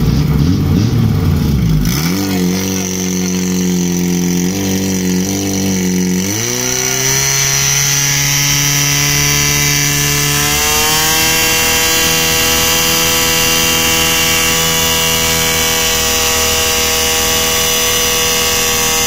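Portable fire pump's engine running under load, its pitch stepping up in stages and then climbing steadily to a high, even drone that it holds for the rest of the time.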